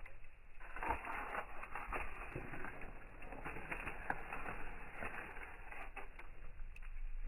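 Campfire burning, with frequent small crackles and pops over a steady rushing hiss.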